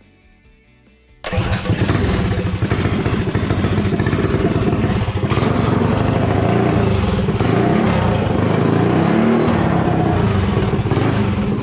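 Mega Moto 212cc minibike's single-cylinder engine running as the bike is ridden. It comes in suddenly about a second in and stays loud and steady, its note wavering with the throttle, during a break-in ride.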